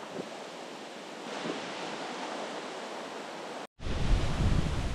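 Steady wash of ocean surf, a hiss with no distinct strokes. Near the end it cuts off suddenly for a moment, then a louder low rumble comes in.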